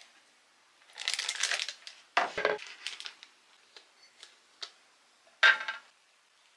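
Silicone spatula scooping and scraping stiff meringue out of a glass bowl into a plastic piping bag, with crinkling of the bag and light clicks of the spatula against the bowl and mug. The sound comes in several short scraping bursts, a few light clicks, and a louder rustle near the end.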